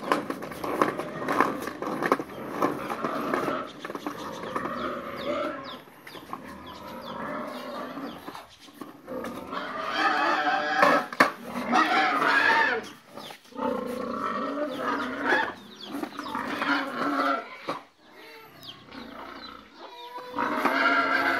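Hard plastic wheels of a toddler's swing car rumbling and grinding over tiled paving, in surges of a few seconds as the car is wiggled along, with brief lulls between.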